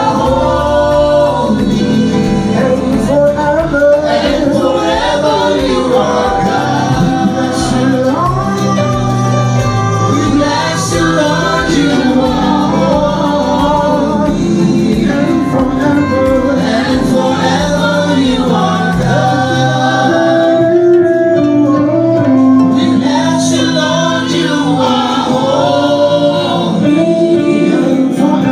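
A small church choir singing a gospel song together in parts, over a pulsing bass beat that drops out about two-thirds of the way through.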